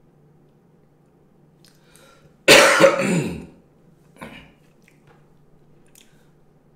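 A man clears his throat once, loudly, about two and a half seconds in, with a short, much fainter follow-up about a second and a half later.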